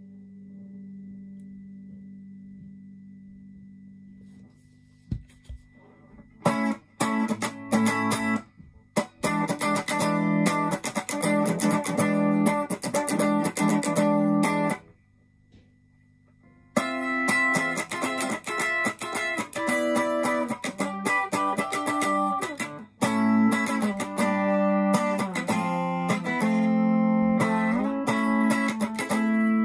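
Fender Japan ST62 Stratocaster electric guitar played through a Yamaha CO-01 compressor pedal and a Marshall Class5 amp: a held chord dying away, a single knock about five seconds in, then rhythmic chord playing that stops for about two seconds in the middle and starts again.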